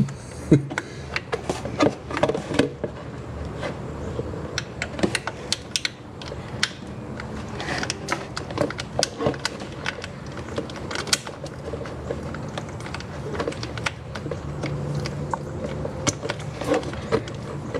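Scattered, irregular metallic clicks and clinks of a hand socket wrench and tools working the thermostat housing bolts loose on a Jeep Wrangler JK engine.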